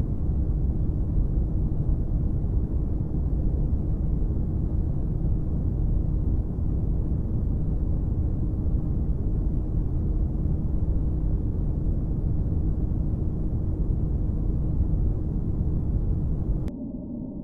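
Steady low rumbling noise with a faint hum, a space-ambience track presented as the sound of comet C/2019 Y4 (ATLAS). Near the end it cuts to a quieter sound of several steady ringing tones.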